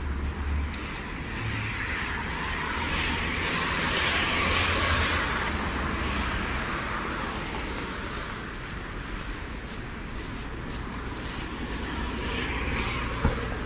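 City street ambience: a car passes by, its tyre and engine noise swelling to a peak about four seconds in and then slowly fading. A single sharp click sounds near the end.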